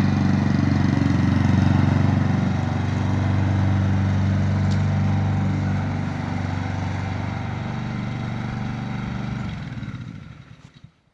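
Honda HRG 466 SK Izy lawn mower's small single-cylinder engine running steadily, then shut off about nine and a half seconds in and winding down to a stop just before the end.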